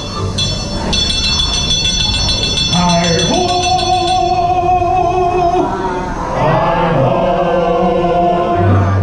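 Seven Dwarfs Mine Train mine-scene show music: voices singing long held notes, with bell-like tinkling for the first few seconds, over the low rumble of the coaster train.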